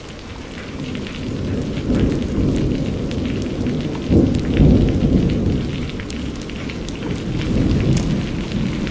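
Steady rain with individual drops ticking, under a low rumble of thunder that builds, peaks about four to five seconds in, and swells again near the end.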